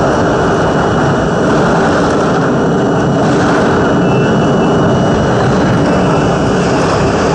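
R42 subway train running through a tunnel: a loud, steady roar of wheels and motors, with a faint thin whine held steady above it.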